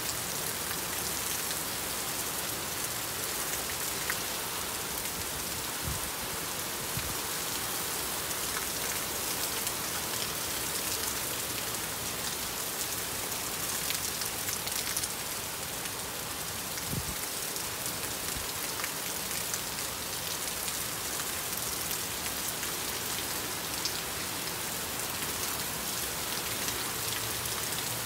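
Heavy rain pouring onto wet asphalt, a steady dense patter of drops splashing on the pavement.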